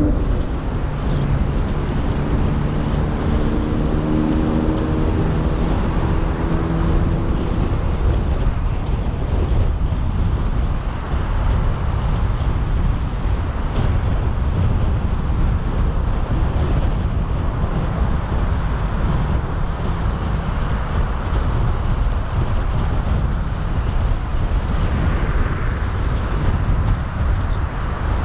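Car driving on the road: steady engine and tyre noise, with a hum of several steady tones over the first several seconds that fades away.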